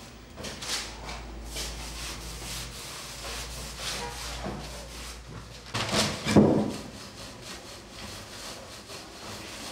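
Stiff fibre brush scrubbing ink onto a carved woodblock, then a hand pad rubbing a sheet of paper down onto the inked block to take a print, in repeated scrubbing strokes. One stroke about six seconds in is louder than the rest.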